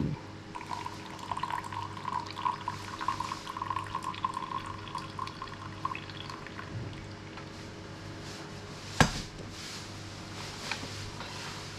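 Fresh moka pot coffee being poured into a glass, trickling and splashing for about five seconds, then a single sharp knock about nine seconds in.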